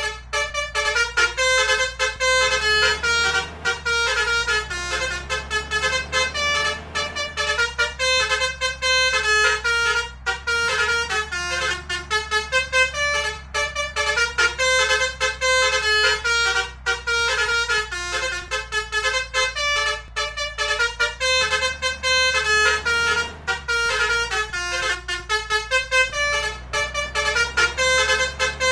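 Bus 'basuri' multi-tone musical air horns (the 'om telolet' horn) playing a fast melody of quickly changing notes without pause, over a steady low hum.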